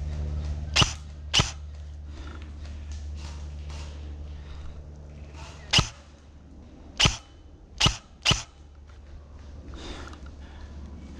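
Airsoft gun firing single shots, six sharp pops in all: two about a second in, then four more in quicker succession a few seconds later.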